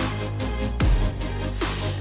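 Electronic background music with a steady beat and deep bass hits that drop in pitch.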